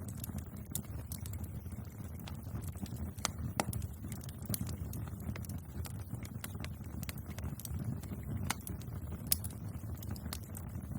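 Wood fire burning with a steady low rumble and irregular sharp crackles and pops, one louder pop about nine seconds in.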